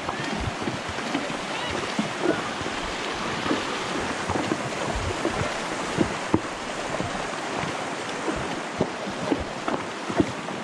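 Horses' hooves splashing and knocking on stones as they wade a shallow, rocky creek, over the steady rush of the running water.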